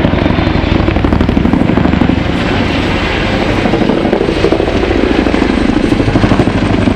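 Boeing Chinook HC2 tandem-rotor helicopter flying a display pass close by: the two rotors beat in a loud, rapid, steady blade slap over the twin turbine engines.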